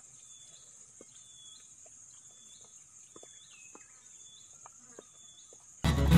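Faint outdoor sound: a steady high hiss with a short, high animal chirp repeating about once a second, and soft scattered clicks. Loud music cuts in suddenly near the end.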